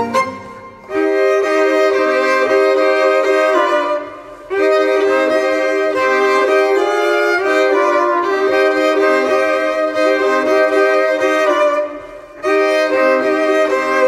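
Background music led by a violin playing sustained melody notes, with short pauses near the start, about four seconds in and about twelve seconds in.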